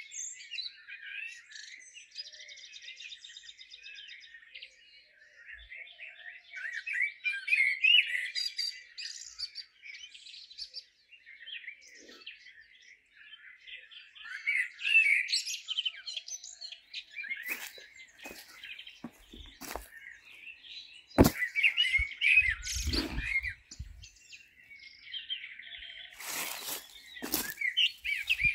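Songbirds chirping and singing all through. In the second half come a few sharp clicks and knocks and some rustling, the loudest click about two-thirds of the way in.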